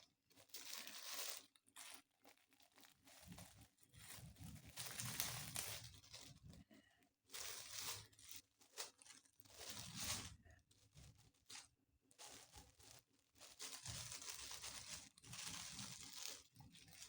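Crinkling and tearing of a food packet's wrapping as it is pulled open by hand, in irregular rustling bursts with short pauses between them.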